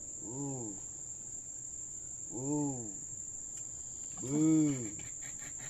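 A steady high-pitched insect trill, like crickets, runs throughout. Over it come three short hooting calls, each rising and then falling in pitch, about two seconds apart; the last one is the loudest.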